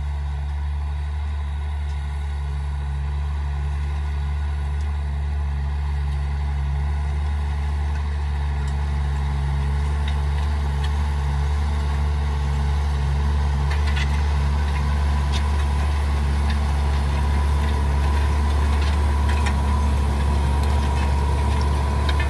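Tractor engine running steadily under load as it pulls an Amazone Cirrus disc seed drill through dry stubble, growing louder as it approaches. Scattered clicks come in about halfway, and a steady whine rises over the engine near the end as the rig passes close.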